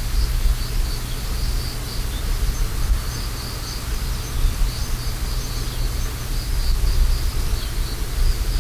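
Autumn insects chirping in a steady, pulsing high chorus, over a loud low rumble.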